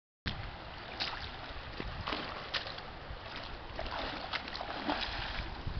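Steady rush of stream water, with a few short splashes as a hooked brown trout thrashes at the surface.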